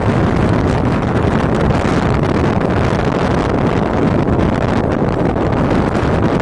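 Steady wind rushing over the microphone from a moving vehicle, mixed with the vehicle's engine and road noise.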